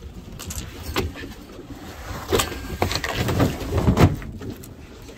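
Irregular knocks and thumps as a large fish is handled on a boat's deck, loudest a little past the middle, over a low steady rumble.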